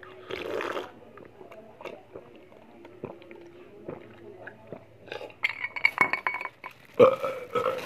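A person drinking from a glass: a short burst of gulping about half a second in and faint clinks of the glass, then louder voiced throat sounds after the glass is lowered, about five seconds in and again near the end.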